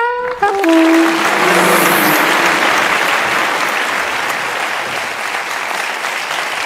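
Studio audience applauding steadily and slowly dying down, after the last brass notes of the show's jingle end in the first second.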